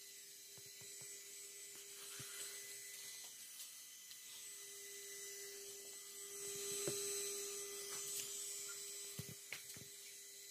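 Faint steady electrical hum at one pitch over hiss, a little louder about two-thirds of the way through, with a few light clicks and taps.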